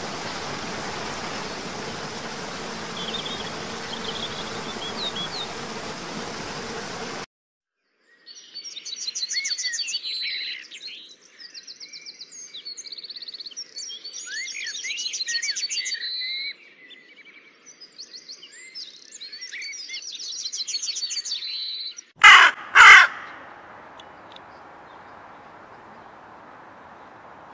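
Waterfall rushing steadily, with a few faint bird chirps. Then, after a sudden cut, songbirds sing in rapid high trills and whistles, followed near the end by two loud caws from a hooded crow.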